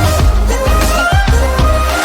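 Background music with a strong bass line and a gliding high melody.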